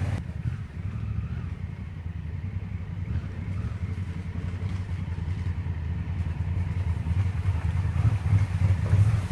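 Two Honda Africa Twin CRF1000L motorcycles, each with a parallel-twin engine, running at low speed some way off. The low engine rumble grows louder near the end as they approach.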